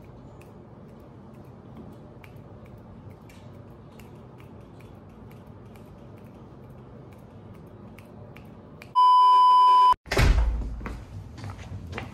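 Faint room noise with a few light ticks, then about nine seconds in a loud, steady electronic beep lasting about a second that cuts off sharply. After it come irregular footsteps and knocks, as of someone walking with a backpack.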